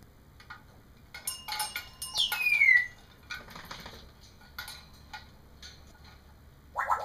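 African grey parrot vocalising: quick sharp clicks, then about two seconds in a loud whistle sliding down in pitch, and a short rising call near the end.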